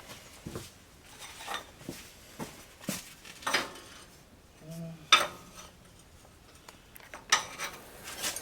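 Irregular metallic clinks and clanks of steel parts and tools being handled, a few sharp knocks spread out, the loudest about five seconds in.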